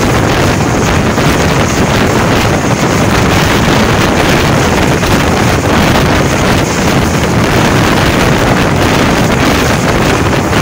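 Loud, steady wind rush buffeting the microphone held out of a fast-moving passenger train's window, mixed with the train's running noise on the track.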